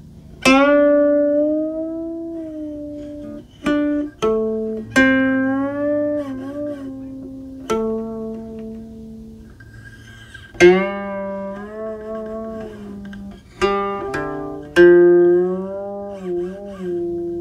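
Jiuxiao-style guqin played solo: fingers pluck single notes and a few quick pairs that ring long and fade. Many notes slide and waver in pitch as the left hand glides along the string, over low open strings that keep sounding underneath.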